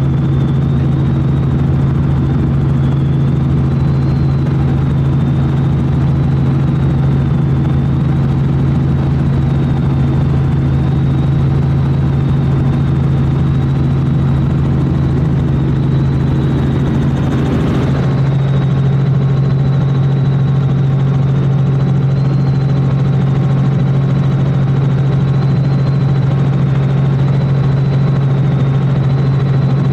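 Small helicopter's engine and rotor running steadily in flight, heard from inside the cabin as a loud, even drone with a thin high whine above it. A brief swell of noise a little past halfway, after which the drone carries on.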